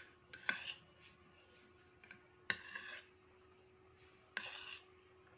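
A metal spoon scraping across a ceramic plate three times, each scrape starting with a sharp clink, as rice is scooped up.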